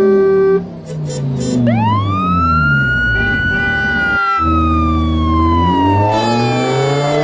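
A siren wail that rises about a second and a half in, holds, then slides slowly down, over lower pitched tones that step downward again and again.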